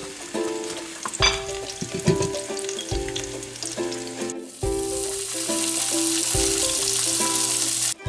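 Pot of thick cooked grits bubbling and being stirred with a silicone spatula, with a couple of sharp knocks against the pot in the first half. A steady sizzling hiss runs through the second half. Background music plays throughout.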